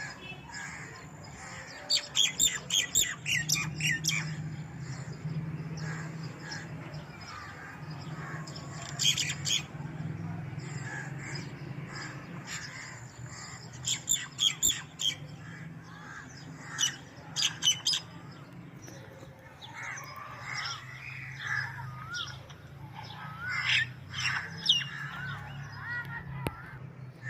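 Baby house sparrows chirping in quick, loud clusters of high squawky calls, several bursts a few seconds apart, over a steady low hum.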